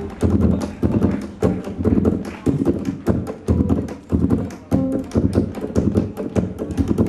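Live band music with a steady, heavy percussion beat at about two strikes a second under pitched instruments.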